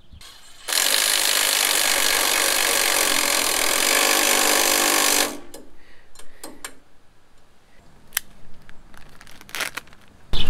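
Cordless impact wrench running down a leaf-spring U-bolt nut, one steady burst of about four and a half seconds that cuts off suddenly, followed by a few light clicks.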